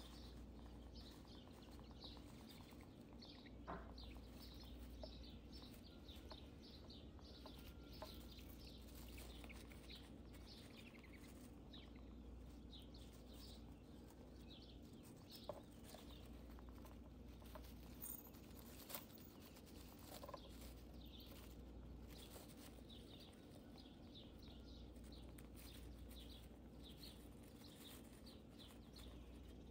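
Faint, quick rustling and scratching of a hamster moving through wood-shaving bedding, with a few light clicks and taps.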